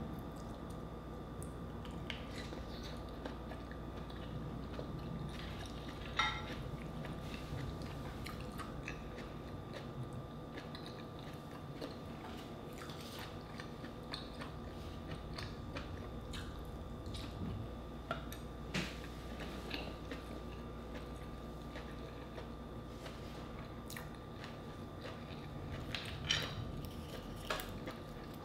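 Close-miked chewing and biting of steamed mussels, with wet mouth sounds and scattered sharp clicks and taps.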